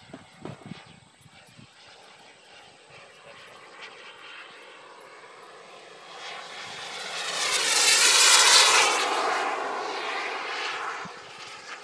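RC model jet's turbine engine heard as a faint whine for the first few seconds, then growing loud as the jet passes by. The sound peaks about eight seconds in and fades away over the next three.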